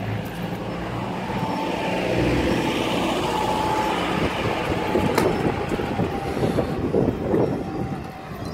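A motor vehicle's engine running close by, swelling over the first couple of seconds and easing off near the end, with a sharp click about five seconds in.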